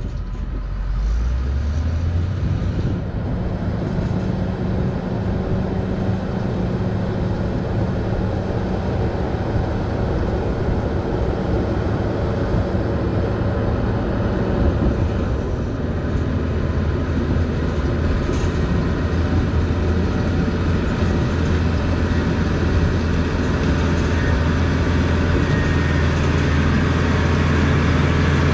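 Cat D6H Series II bulldozer's six-cylinder diesel engine revving up about a second in, then running steadily under working load, growing slowly louder toward the end.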